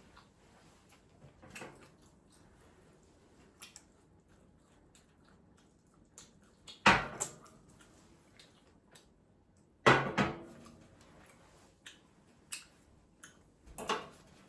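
A person eating close to the microphone: scattered small clicks and mouth sounds, with two sharp, louder knocks or crunches about 7 and 10 seconds in.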